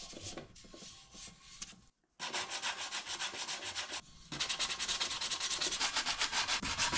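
Hand sanding of cured Bondo body filler on an alloy wheel spoke with 80-grit sandpaper wrapped around a sanding sponge. Quick back-and-forth scratching strokes come about five a second. They are faint at first, break off briefly about two seconds in and again around four seconds, then go on louder.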